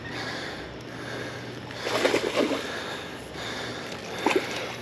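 Water splashing and sloshing during the fight with a hooked smallmouth bass, with louder splashes about two seconds in and again near the end.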